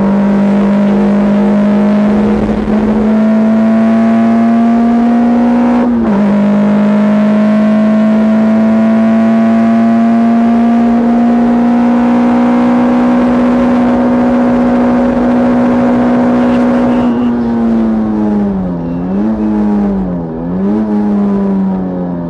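Škoda Felicia 1.3 MPI four-cylinder engine heard from inside the cabin, pulling hard at high revs down a long straight, its pitch climbing slowly. There is one quick upshift about six seconds in. Near the end the revs fall, with two short dips and recoveries as it shifts down for the corner.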